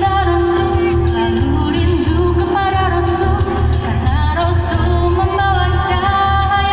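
Group of voices singing a shalawat, an Islamic devotional song, over backing music with a steady, pulsing bass.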